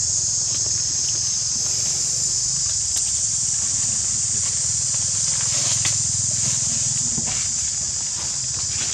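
Steady, unbroken high-pitched insect chorus, with a few faint rustles in dry leaf litter.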